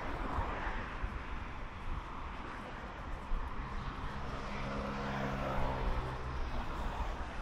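A motor's steady drone rises out of the background a few seconds in, holds an even pitch, then fades near the end, over a constant low rumble of outdoor traffic and wind.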